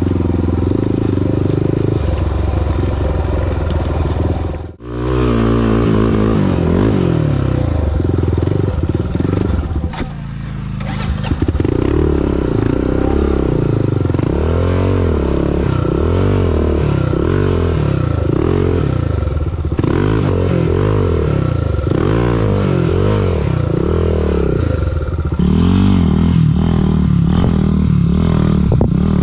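Honda TRX400EX quad's single-cylinder four-stroke engine under way, revving up and down over and over as the throttle is worked.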